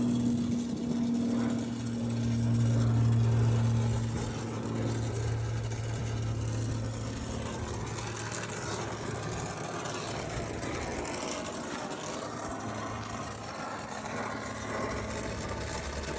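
A machine running with a steady low hum, loudest in the first few seconds and then settling into a steady mix of hum and rushing noise.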